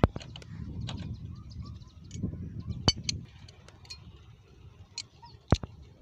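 Ghazi 20 HP diesel engine being hand-cranked with a starting handle: a low, uneven rumble that eases off about halfway, with a few sharp knocks, the loudest near the middle and near the end.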